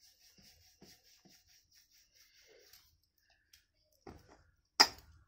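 Mostly quiet with faint light ticks. About four seconds in, a wooden rolling pin works roti dough on a wooden board, and near the end there is one sharp, loud knock.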